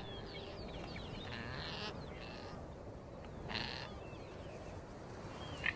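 Faint birdsong: a scatter of short, falling whistled chirps, with a few brief scratchy calls in the middle.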